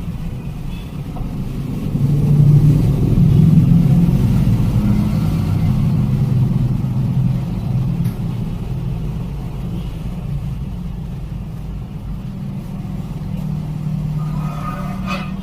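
A steady low engine-like rumble that swells louder about two seconds in and eases off again over the next few seconds.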